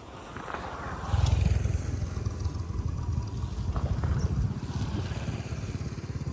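Motorbike engine running with a fast low beat, getting louder about a second in.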